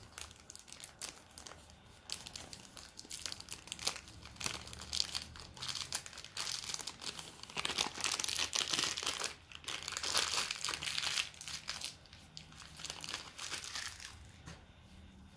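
Cellophane sleeve crinkling and crackling as it is peeled off a cigar and crumpled in the hand. It is busiest in the middle and dies down a second or so before the end.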